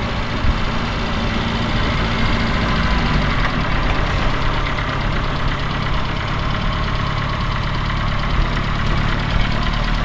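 Reliant Regal's small four-cylinder engine idling steadily, heard from inside the car's cabin.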